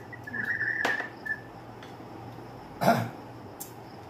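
A person coughing once, a short loud cough about three seconds in.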